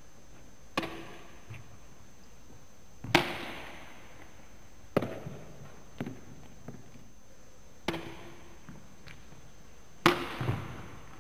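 Badminton racket striking shuttlecocks, about six sharp hits one to three seconds apart, the loudest about three seconds in and near the end. Each hit echoes briefly in a sports hall.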